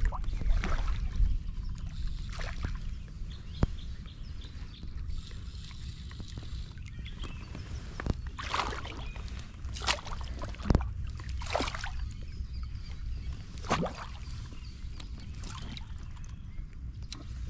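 Water splashing and sloshing around a float tube, several separate splashes in the second half, over a steady low rumble of wind and water.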